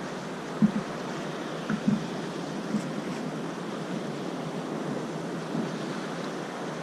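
Sea water washing around a kayak with wind buffeting the microphone, a steady rushing noise broken by a few soft knocks against the hull about half a second and about two seconds in.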